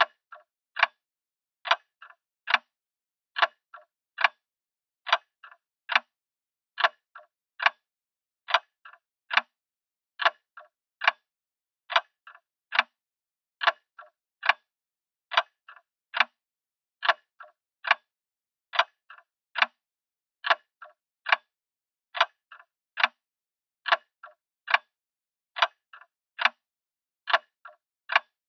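Grandfather clock ticking steadily, a sharp tick a little more than once a second, with fainter doubled clicks between every other pair of ticks.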